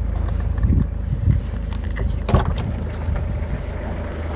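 Toyota Hilux 2.8 diesel engine running with a steady low hum as the pickup drives over soft dirt, with wind on the microphone and a few short thumps in the first half.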